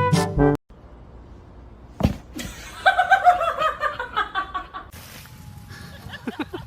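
A person laughing in a run of short bursts, each falling in pitch, after a brass music sting cuts off and a single thump.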